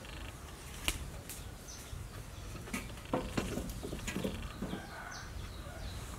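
Outdoor yard ambience: birds give short, high, falling chirps now and then, over a steady low rumble. A few sharp clicks fall within the first half, the loudest about a second in and near the middle.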